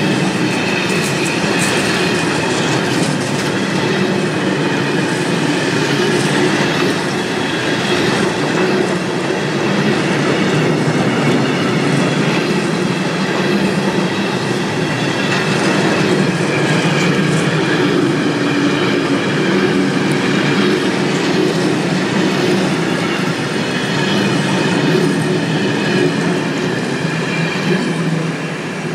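Long freight train of high-sided sliding-wall covered wagons rolling past, the steady noise of its wheels running over the rails. The sound falls away near the end as the last wagon goes by.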